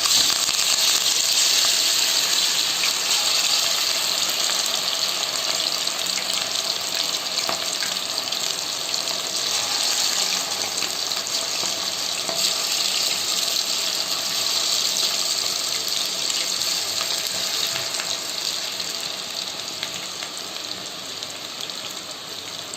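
Battered chicken pakoda pieces deep-frying in hot oil in a kadai: a steady, loud sizzle from freshly added, moist pieces. It eases off slightly near the end.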